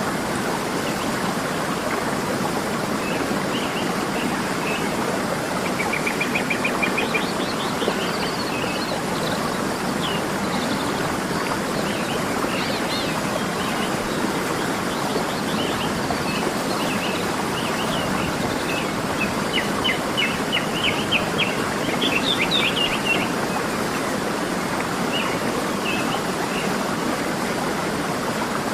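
Steady rush of a waterfall with birds chirping and trilling over it, in scattered bursts that are busiest a few seconds in and again past the middle.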